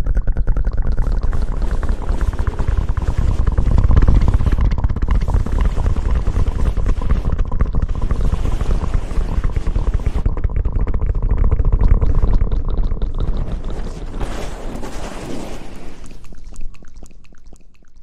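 Dense, wet crackling and rustling from mouth contact directly on a close ASMR microphone, with a heavy low rumble from the contact. It fades out over the last couple of seconds.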